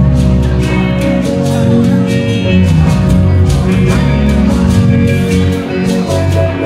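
Live band music with guitar and strong bass over a steady percussive beat.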